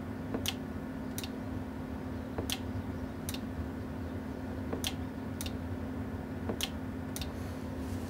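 Relay in a Sweet 16 CB linear amplifier clicking as the amp is keyed and unkeyed: four pairs of sharp clicks, each pull-in followed well under a second later by release, over a steady low hum. The relay's contacts have been freshly polished and it is dropping out each time rather than staying latched.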